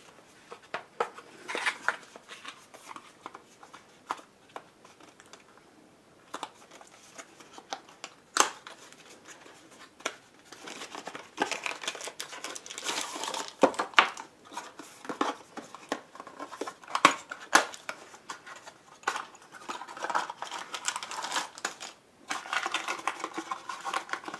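A small cardboard parts box being opened by hand and plastic-wrapped parts taken out: scattered clicks and taps with stretches of crinkling rustle.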